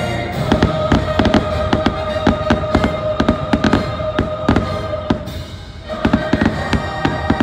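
Fireworks going off in rapid succession, several sharp bangs and crackles a second, over show music holding a long sustained note. The bangs ease off briefly about five seconds in, then start again.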